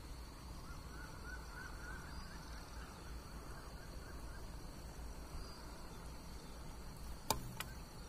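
Evening outdoor ambience over flooded farm furrows: many short animal calls repeating quickly, over a steady high tone and a low rumble. Two sharp clicks near the end.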